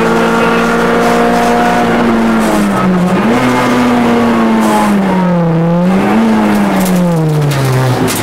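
Rally car engine heard from inside the cabin, running at high revs. The revs dip briefly about three seconds in and drop again around five seconds, each time climbing back. Near the end they fall steadily as the car slows.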